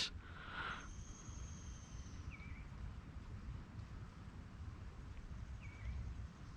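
Faint outdoor ambience: a bird gives the same short call twice, about three seconds apart, over a low steady rumble.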